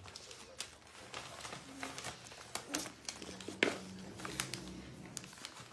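Newspaper crinkling and rustling under a puppy as it scrabbles about on it, in a run of irregular short crackles, the sharpest a little past halfway.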